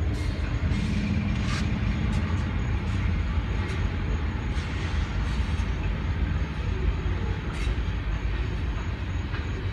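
CSX freight train passing: a diesel locomotive's steady rumble with a low hum in the first few seconds, then freight cars rolling by, with a few sharp clicks along the way.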